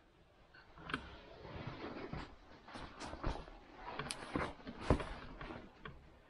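Footsteps and scrambling over cave rock as someone climbs down: irregular scuffs, scrapes and sharp knocks that begin about a second in, the loudest knock coming near the end.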